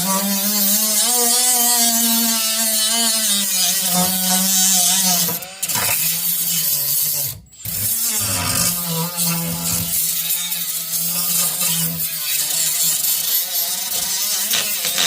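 A motor running under a loud hiss, its hum wavering slightly in pitch and cutting out briefly twice around the middle.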